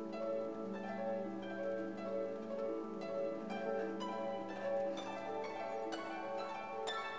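Quiet background music: a melody of short plucked string notes, one after another.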